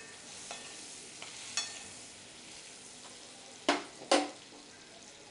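Jaggery lumps sizzling softly in melted butter in a metal kadai while a metal spoon stirs and scrapes them. There is a light clink a little over a second in, and two sharp knocks of the spoon against the pan about four seconds in.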